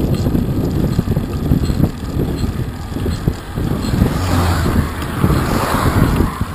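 Wind buffeting the microphone of a camera mounted on a moving bicycle. About four seconds in, a car overtakes, its tyre and engine noise swelling and then fading as it pulls away.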